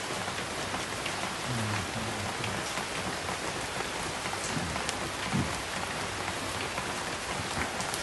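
Steady rain falling on broad banana and papaya leaves and palm fronds, an even patter of drops.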